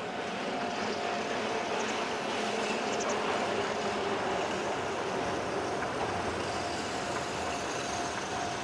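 Keihan 700-series electric train approaching slowly, giving a steady running noise of wheels on rail and its motors, growing slightly louder as it nears.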